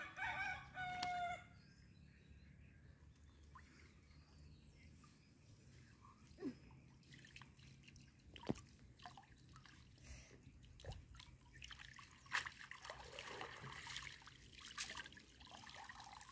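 A rooster crows once in the first second and a half, the loudest sound here; then faint water sounds follow: light splashing, dripping and trickling as a cast net is hauled in and lifted out of a pond, busier toward the end.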